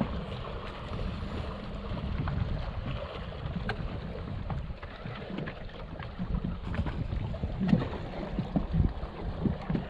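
Wind buffeting the microphone over choppy water slapping against a small fishing boat, an uneven low rumble with a few heavier thumps in the second half.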